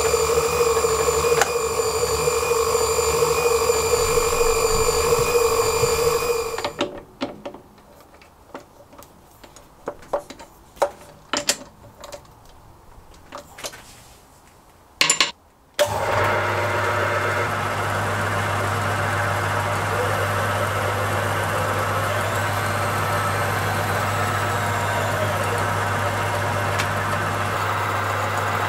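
Metal lathe machinery. For the first six seconds or so there is a steady multi-pitched whine from the electronic power feed's motor driving the carriage. A quieter stretch follows with a few clicks and knocks of handling. From about sixteen seconds the lathe's electric drive motor runs with a steady low hum.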